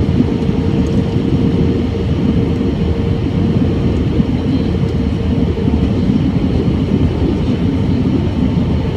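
Airbus A320 cabin noise in flight, heard from a window seat over the wing: a steady roar of engines and airflow, with a steady hum running through it that fades about six seconds in.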